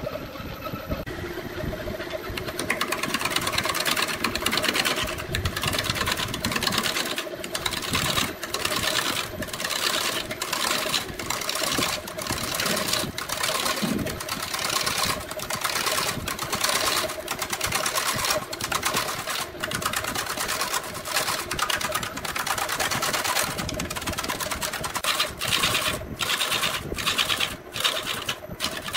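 A hand-held turning tool cutting into a spinning wooden blank on a motor-driven wood lathe: a continuous rasping hiss that sets in about two seconds in and breaks off for short moments many times as the tool eases off the wood, over the steady hum of the lathe's electric motor.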